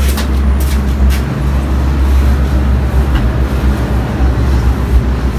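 Steady low rumble of background noise with a hiss over it, and a few light knocks in the first second.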